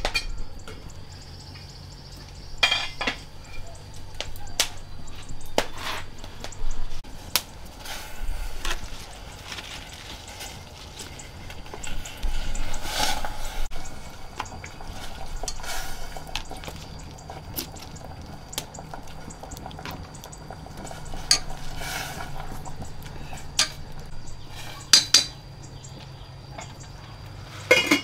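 Kitchen utensils clinking, knocking and scraping against pots and dishes, in irregular strokes, as food is stirred and handled during cooking.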